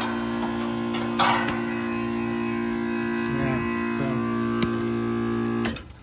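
Residential AC condenser's compressor squealing in a steady, many-toned whine while the condenser fan motor sits stopped, tripped on its thermal overload. The tech thinks the squeal is the compressor going into bypass from overheating with no condenser airflow. The whine cuts off suddenly just before the end.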